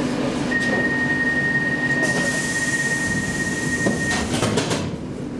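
Stockholm C14 metro train standing at a platform, heard from inside the car, with its door-closing warning: one steady high beep lasting about four seconds. A hiss comes in about halfway through, and a quick cluster of knocks near the end as the sliding doors shut.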